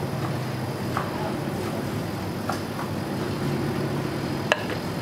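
Restaurant kitchen ambience: a steady low hum with scattered light clicks and clinks, and one sharp knock near the end.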